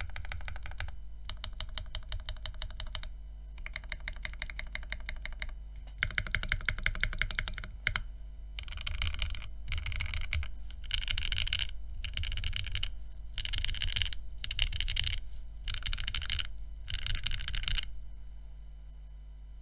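Mechanical keyboard with an aluminium plate, lubed KTT Strawberry V2 linear switches and GMK keycaps, typed on fast in bursts of one to two seconds: rapid streams of key clacks, choppier and brighter in the second half, stopping near the end. A steady low electrical buzz from the recording setup sits underneath.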